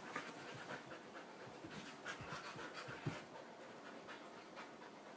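Siberian huskies play-wrestling: faint dog panting with light scuffling, and a brief knock about three seconds in.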